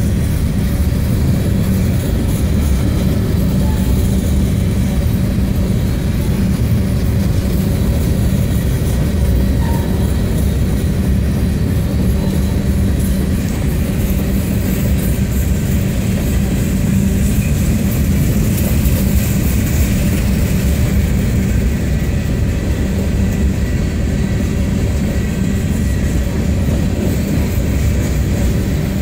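Freight train's covered hopper cars rolling past: a steady, loud noise of steel wheels on rail that holds level throughout.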